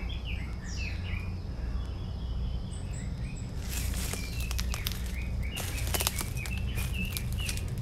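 Footsteps and rustling in dry leaf litter on a forest trail, a run of crisp crunches and rustles in the middle and later part, over a steady low rumble on the microphone. Faint short bird chirps come and go.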